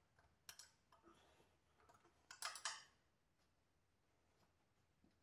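A few light metallic clicks and clinks from tools or parts being handled, with a quick cluster of sharper clinks about two and a half seconds in; otherwise near silence.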